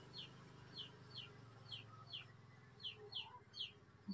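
Faint, repeated high chirps from a bird, each sliding down in pitch, about two a second and growing louder near the end.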